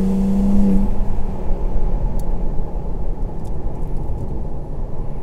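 BMW M2 G87's twin-turbo inline-six running on the move. Its steady note rises slightly and then drops away about a second in, leaving a rumble of engine and road noise.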